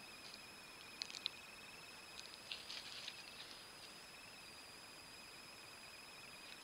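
Faint, steady trilling of crickets, with a few sharp clicks about a second in and a run of scratchy rustles and clicks around two to three and a half seconds in: a skunk nosing and brushing its fur against the trail camera.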